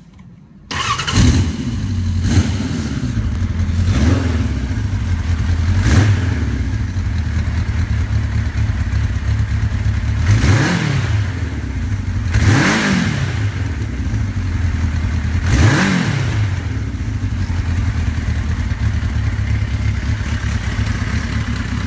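Kawasaki Zephyr 1100's air-cooled inline-four engine catching on the first press of the starter about a second in, then idling steadily. It is blipped a few times briefly in the first seconds, then revved up and back down three times around the middle. It runs without any bad abnormal noise, the sign of an engine in good condition.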